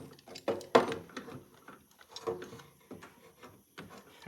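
A series of metallic clanks and knocks, some briefly ringing, from mower parts, bolts and hand tools being handled while fitting the idler assembly. The loudest knock comes about three quarters of a second in.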